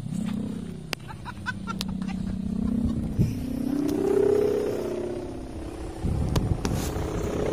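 Sendaren kite hummer, a bamboo bow strung with a plastic (mika) ribbon, droning as the large kite is launched and climbs. The buzz starts suddenly, wavers in pitch, rises about halfway through and then sinks back. A low rumble comes in near the end.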